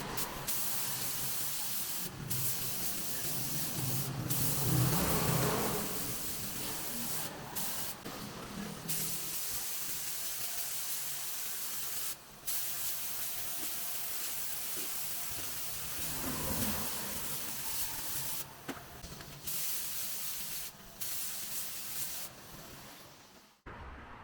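Compressed-air spray gun hissing in long passes, broken by several short breaks, then cutting off abruptly near the end.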